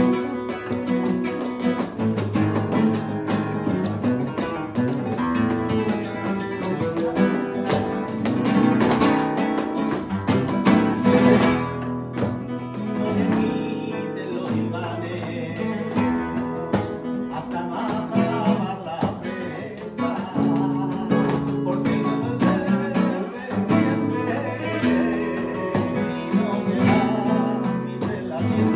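Flamenco music: acoustic guitar playing with rapid strumming and plucked runs.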